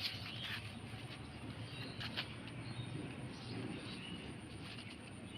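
Outdoor ambience: birds chirping over a steady low rumble, with a few short clicks or rustles near the start and about two seconds in.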